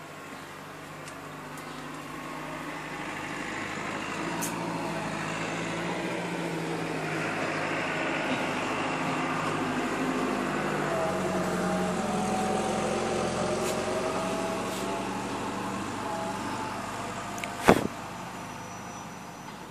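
A motor vehicle passing on the street, its engine and road noise growing over several seconds and then fading away. A single sharp knock near the end.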